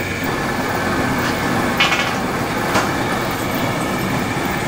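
Steady machinery noise with a faint high whine running under it, and two short clicks about two and three seconds in as a steel machine frame is handled.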